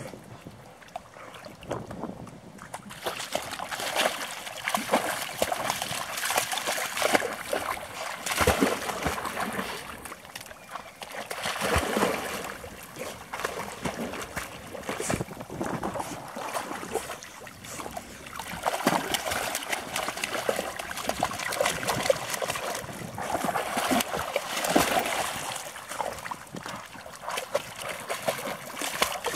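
Water splashing and sloshing as a puppy and a larger dog swim and paddle, starting a few seconds in and going on irregularly.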